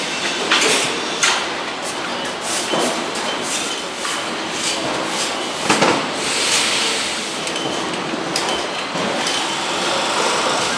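Factory floor noise on a motorcycle engine assembly line: a steady hiss with irregular metallic clanks, clicks and knocks from tools and parts being handled.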